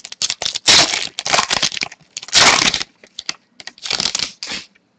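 A trading-card pack's wrapper being torn open and crinkled, in about five short rustling bursts.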